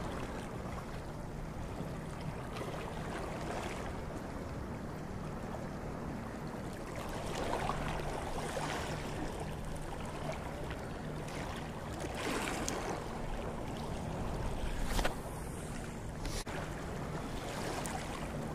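Small waves washing against the rocks of a jetty, with a steady rush of wind and surf noise. A few sharp clicks come in the latter part.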